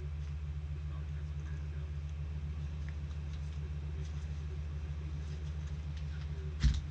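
A steady low hum runs throughout, with faint scattered ticks and one sharp tap near the end.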